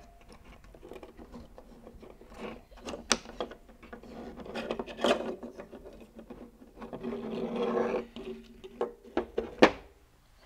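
Circuit board and front panel of a Marantz PMD-602a preamp being worked out of its cast aluminium case by hand: scraping and rubbing, broken by several sharp clicks and knocks.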